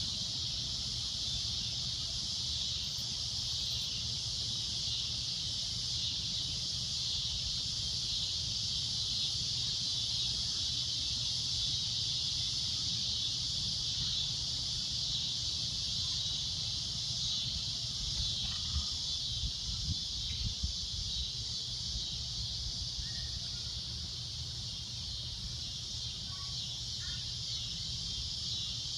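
Cicadas in a loud, shrill droning chorus: one high, steady buzz that holds without a break.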